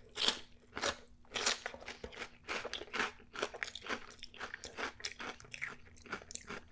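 Crunching and chewing of Hot Cheetos nachos topped with melted cheese sauce and ground beef: a string of irregular crisp crunches, about two or three a second.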